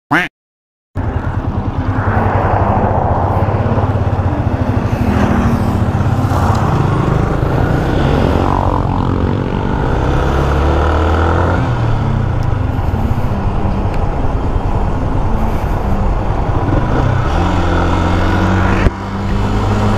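Motorcycle engine running while under way, with wind noise over it. The engine pitch shifts up and down a few times as the speed changes. A short intro sound and a second of silence come at the very start.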